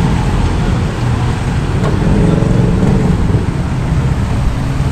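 Steady road traffic noise: motor vehicles running past, a continuous low rumble with an engine note rising through it about two seconds in.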